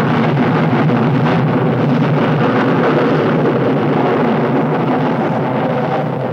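Rocket launch: the engines' loud, steady rumble at liftoff, easing slightly near the end.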